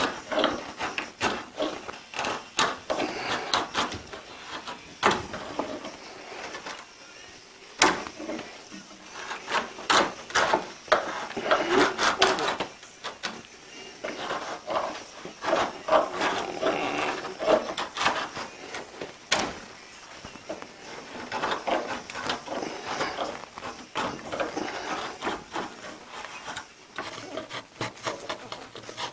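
Pull knife shaving a pallet-wood paddle shaft by hand: a run of irregular scraping strokes with sharp clicks as the blade bites and lifts off the wood.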